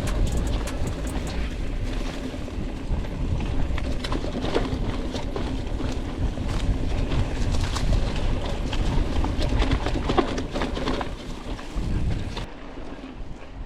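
Mountain bike riding over a rough dirt trail, heard from a bike-mounted action camera: wind buffeting the microphone with a steady low rush, and the bike rattling and clicking over the bumps. The sound drops and quietens near the end.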